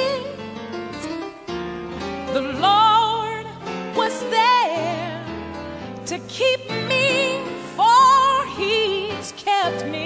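Gospel music: a voice sings long held notes with heavy vibrato over a keyboard and bass accompaniment.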